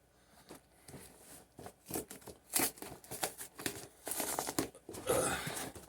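A large cardboard box and its packing being opened by hand: irregular crinkling and rustling with short tearing sounds.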